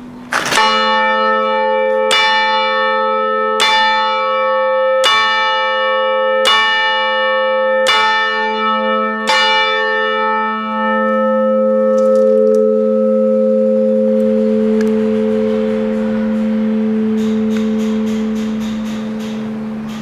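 A dead-hung church clock bell struck seven times by its clock hammer, about a second and a half apart, striking the hour. After the last blow the bell hums on and slowly dies away. It is heard loud and close, from inside the bell chamber.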